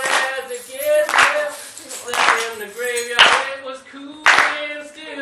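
Hands clapping in a slow, steady beat, about one clap a second, with voices calling and singing along between the claps.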